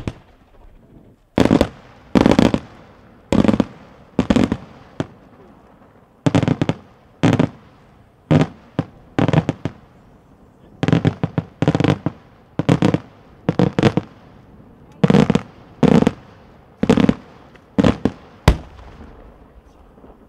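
Daytime fireworks display: aerial shells bursting overhead in a string of about twenty sharp bangs, roughly one a second and sometimes two in quick succession.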